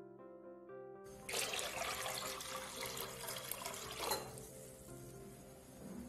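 Water pouring and splashing into a nonstick cooking pot for about three seconds, stopping abruptly, over background music.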